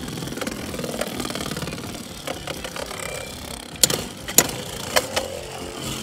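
Two Beyblade X tops, Viper Tail and Hells Chain, spinning against each other in a plastic stadium: a steady whirring, grinding rattle. It is broken by sharp clacks of the tops colliding, about four seconds in and again half a second and a second later.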